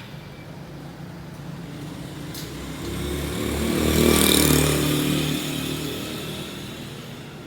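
A motorbike passing by: its engine and tyre noise swell to a peak about four seconds in and then fade away.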